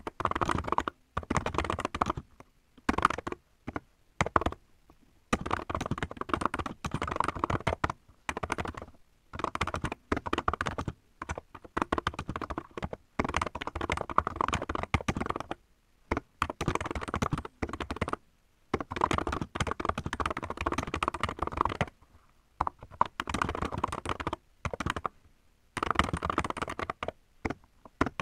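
Rapid typing on a mechanical keyboard: runs of quick keystrokes broken by brief pauses every few seconds.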